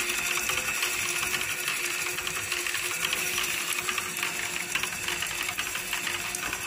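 Electric rotisserie drive of a charcoal souvlaki grill running as it turns the pork skewers: a steady motor hum with fast, even clicking from its gears.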